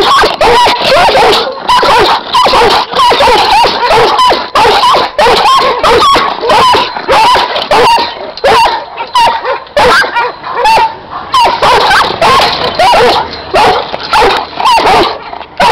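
Giant schnauzers barking hard in a rapid, unbroken string of loud barks, several a second.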